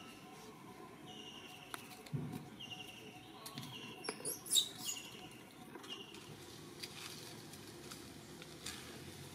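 High, short squeaky animal calls, each about half a second long, repeated roughly once a second and then more sparsely. About four seconds in, a brief burst of sharp clicks and scuffling noise.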